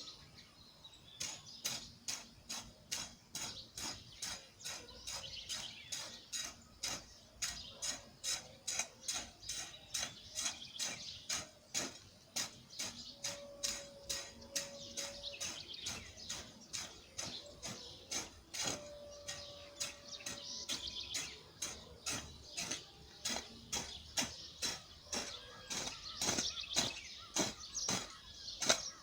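A hand digging tool striking and cutting into soil over and over, about two strokes a second in a steady rhythm, with birds chirping in the background.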